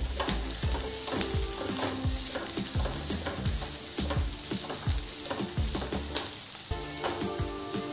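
Diced onion, carrot and green chilli sizzling in hot oil in a kadhai, with repeated scraping strokes of a spatula stirring them against the pan.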